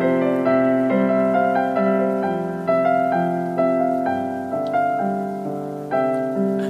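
Solo piano playing a slow, gentle passage of broken chords, each note struck and left to ring into the next.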